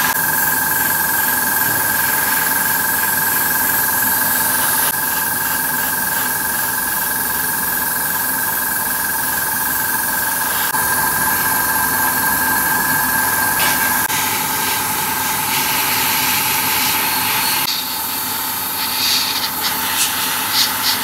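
Airbrush spraying paint with a steady hiss over the whine of its small air compressor running. Near the end it sprays in short spurts.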